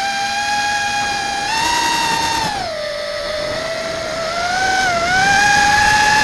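Motors and propellers of an Airblade ZMR150 mini racing quadcopter whining, heard from its onboard camera. The pitch rises about a second and a half in, drops a second later, and climbs again from about four and a half seconds as the throttle changes.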